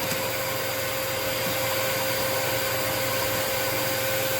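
Vacuum cleaner running steadily with a constant whine, sucking dust out of a sewing machine.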